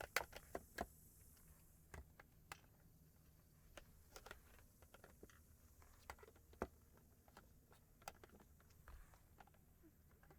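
Faint scattered clicks and light knocks of composite raised-bed boards and plastic brackets being handled and set down: a quick run of taps in the first second, then single taps every second or two.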